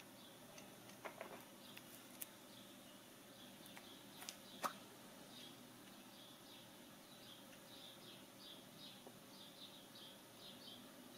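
Near silence, broken by a few soft clicks of a plastic Kinder Surprise toy capsule being handled and snapped open, the sharpest a little before halfway. From about halfway on, faint bird chirping repeats in the background.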